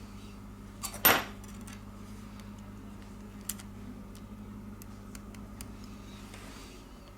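Small tools and phone parts being handled on a repair bench: a few sharp clicks and clacks, the loudest about a second in and another about three and a half seconds in, with faint ticks between, over a steady low hum.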